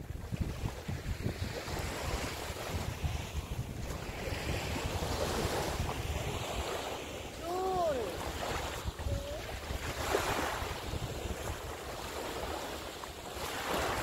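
Sea surf washing on a sandy beach in slow swells, with wind buffeting the microphone. A single short high call, rising and then falling, about halfway through.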